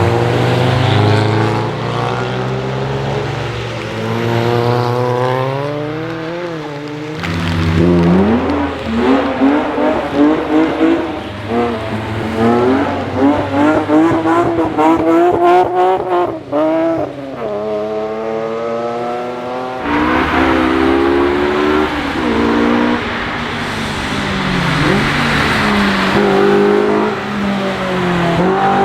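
Cars being driven hard on a wet track: engines revving up and dropping back through a run of gear changes, with hiss from tyres on the wet surface. The sound cuts abruptly from one car to another about 7 seconds in and again about 20 seconds in.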